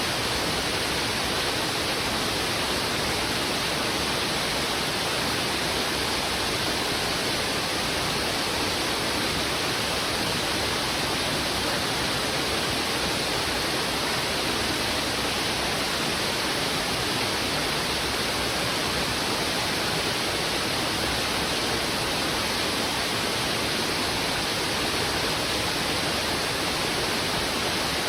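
A river in heavy flow rushing over rocks: a steady, even rush of water with no breaks or changes.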